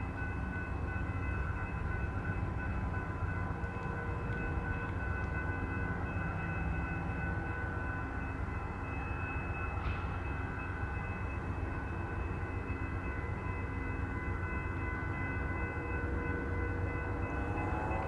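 Diesel locomotives of a stopped passenger train idling: a steady low rumble with a constant whine of several held tones. A single brief click about ten seconds in.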